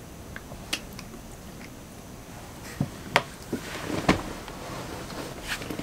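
A few small sharp clicks and soft smacking noises from liquid lipstick being applied, with quiet room tone between them.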